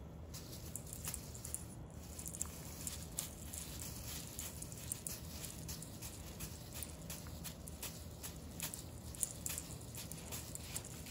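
Soft, quick rustles and ticks of a feather-and-tinsel wand toy swished over carpet while a cat bats at it with its paws, over a low steady hum.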